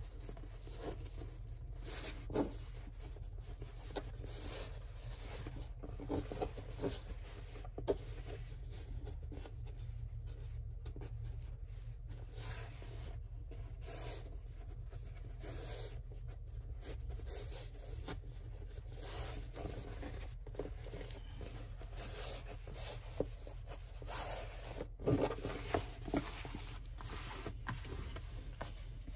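Woven canvas-like fabric rustling and rubbing as hands fold, pinch and smooth it flat on a sewing-machine table, in short scattered scrapes and rustles over a steady low hum.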